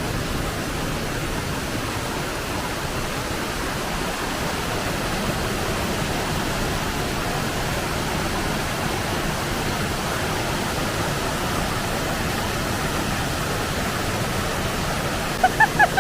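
Waterfall rushing: a steady, even wash of falling water. Near the end, four short high chirps cut sharply through it.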